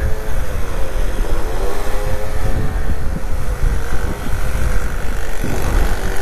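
Peugeot Jetforce scooter engine running at a steady cruising speed, its pitch sagging and picking up again about a second in, with wind rumbling on the microphone.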